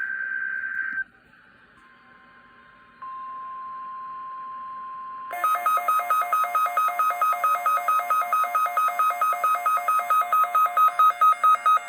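NOAA Weather Radio weekly test alert. The digital SAME header burst ends about a second in, then the steady 1050 Hz warning alarm tone sounds. About five seconds in it is joined by loud, rapid electronic alarm beeping, several beeps a second.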